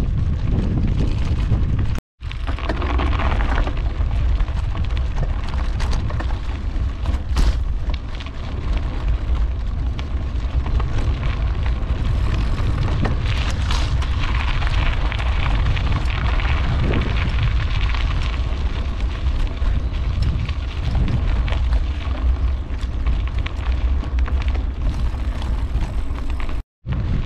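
Wind buffeting the microphone on a moving bicycle, a heavy steady low rumble, with bicycle tyres crunching over a dirt track and scattered knocks from bumps. The sound cuts out briefly twice, about two seconds in and near the end.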